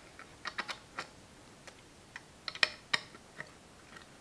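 Irregular small clicks and taps of hands working loose the back cover of an Electro-Voice DH-1K compression driver mounted on its horn, with its Allen screws undone. The loudest click comes a little past halfway.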